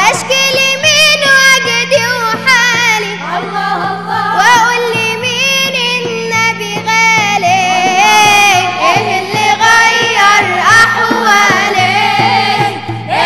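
Male and female voices singing an Arabic religious inshad in praise of the Prophet, in ornamented, wavering melodic lines over a steady drone and a regular low beat.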